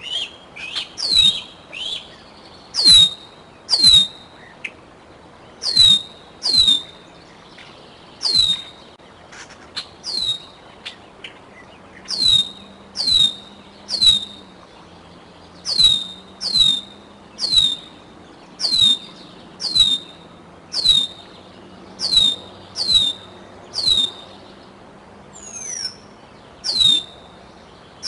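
Juvenile bald eagle calling: a long series of high whistled calls, each sliding sharply down in pitch, mostly in runs of two or three just under a second apart.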